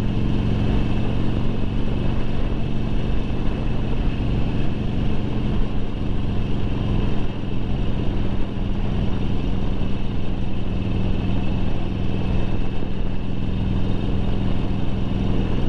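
Air-cooled V-twin engine of a 2009 Harley-Davidson Sportster 1200 Low running steadily at a moderate cruise of about 40 mph, heard from the rider's seat under a continuous rush of road and wind noise.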